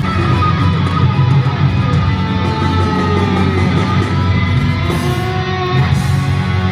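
Live rock band playing an instrumental passage led by strummed electric guitar, loud and steady.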